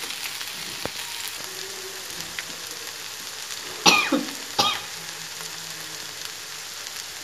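Dahi pakora (yogurt-batter fritters) shallow-frying in hot oil in a non-stick pan, a steady sizzle. Two brief, louder sounds come a little past the middle.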